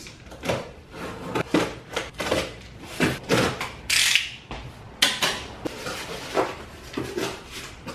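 Cardboard box being opened with a razor blade: the blade slicing along the packing tape, then the box handled and its flaps worked open, with irregular scrapes, knocks and rustles of cardboard and a brief sharp hiss about four seconds in.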